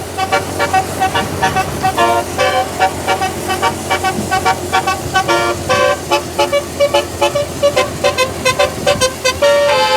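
Indonesian bus 'telolet' musical air horn playing a fast melody of short honked notes, several a second and changing in pitch, with a few longer held notes between the runs.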